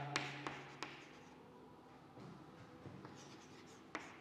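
Chalk writing on a chalkboard: faint scratching strokes with a few sharp taps as the chalk strikes the board.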